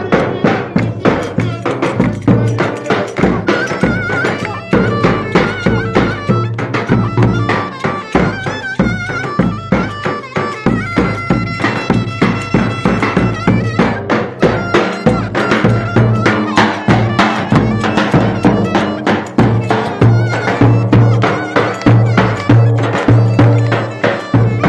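Traditional Turkish folk dance music played by a band: an ornamented, wavering melody over a steady, fast drumbeat.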